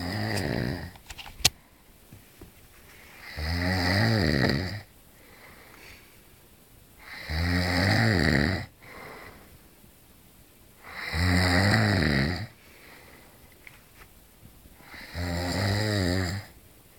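A sleeping man snoring, each snore about a second and a half long, coming about every four seconds. A single sharp click sounds about a second and a half in.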